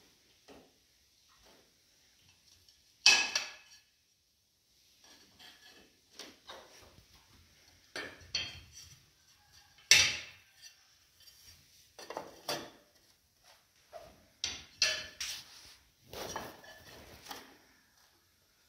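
Ceramic wall tiles clinking and knocking against one another as they are taken from a stack and set onto the wall. The sharp clinks come irregularly, the two loudest a few seconds in and around the middle.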